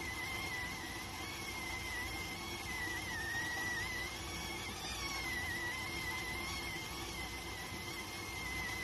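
Electric rice cooker letting off steam while cooking: a steady high whistle that wavers slightly in pitch, over a soft steady hiss.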